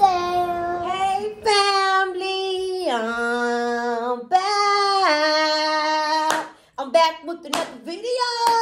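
A child singing long held notes that step and slide between pitches, with a few sharp claps or hand knocks near the end.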